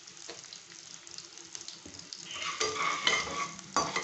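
Oil sizzling faintly in a tempering of spices, dals and peanuts. About two seconds in, a metal slotted spoon starts stirring and scraping against the aluminium pan, with a sharp knock near the end.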